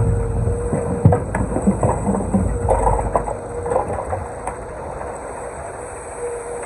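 Excavator working on a stone wall: the engine runs with a steady whine while stones knock and clatter. The low rumble of the engine eases about halfway through.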